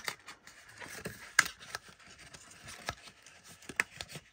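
A cardstock paper box being handled: light rustling with a few sharp taps and clicks, the loudest about a second and a half in.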